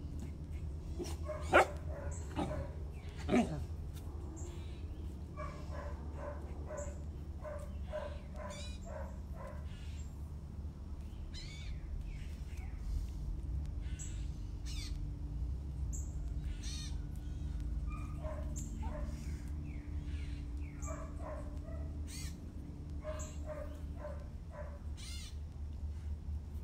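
A puppy giving many short yips and whines throughout. Two louder cries come about a second and a half and three and a half seconds in, the second falling in pitch.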